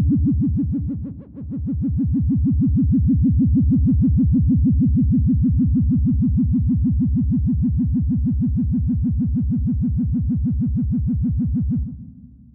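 Vintage 1950s-style sci-fi flying saucer sound effect: a low synthesized drone that pulses rapidly and evenly, dipping briefly about a second in, then fading out near the end.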